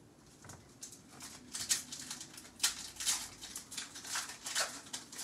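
Hockey trading cards handled by hand: a string of short rustling and sliding sounds as the cards are shuffled through one after another.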